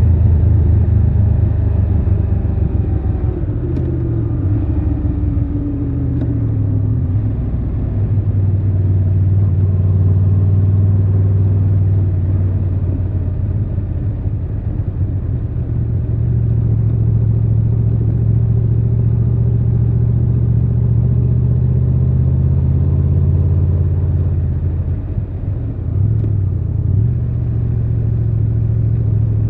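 Triumph Tiger 1200 Rally Pro's three-cylinder engine and exhaust running under way, heard from the rider's seat. The engine note falls in pitch a few seconds in, holds steady, and dips briefly about 25 seconds in before picking up again.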